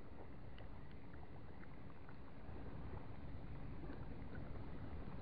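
Shallow sea water lapping around a wading angler, with small scattered splashes over a low steady rumble.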